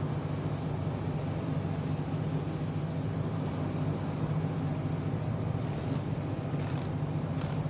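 Steady low mechanical hum, with a few faint short crackles near the end as blue self-adhesive bandage is pulled off its roll and wrapped around a dog's leg.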